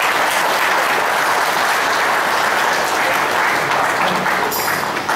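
Audience applauding steadily, starting to thin out near the end.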